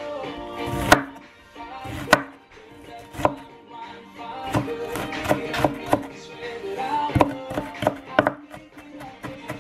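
Chef's knife chopping a red onion on a wooden cutting board: irregular sharp knife strikes against the board, over background music.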